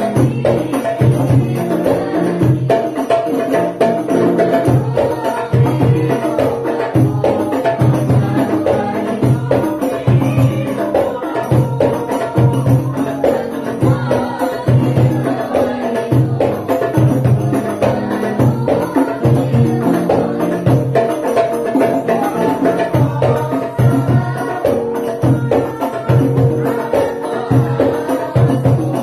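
Sholawat sung by a group of voices to the steady beat of rebana frame drums and hand drums.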